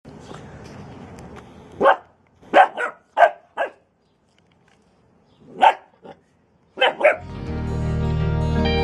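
Bernese Mountain Dog puppy giving short, sharp barks, about nine in small groups with pauses between. Background music comes in about seven seconds in.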